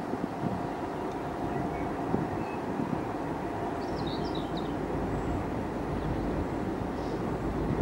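Steady low rumble of distant vehicles, with a faint held tone and a few short, high chirps about four seconds in.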